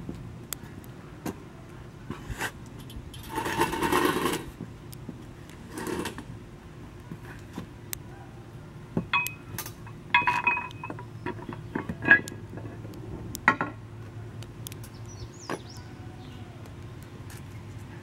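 Lock pick and tension wrench working in the keyway of a Master Lock No. 17 laminated steel padlock under heavy tension: scattered small metallic clicks, ticks and scrapes while hunting for binding pins, with a longer scraping rustle about four seconds in. The lock does not open.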